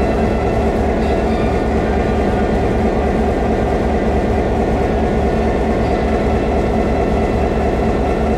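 Stationary train's locomotive engine idling: a loud, steady low rumble with an even throb and a constant hum over it.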